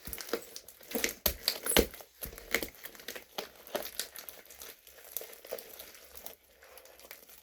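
Homemade glue slime being kneaded and stretched by hand, giving a run of irregular sticky clicks and pops.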